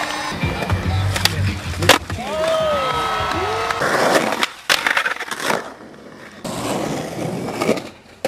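Skateboard riding in a concrete bowl: urethane wheels rolling and rumbling over the concrete, with sharp clacks and knocks from the board. Drawn-out calls from people watching rise and fall over it.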